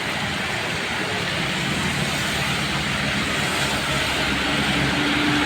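Steady road traffic passing, a continuous hiss of tyres and engines with a lower engine hum that grows a little louder near the end.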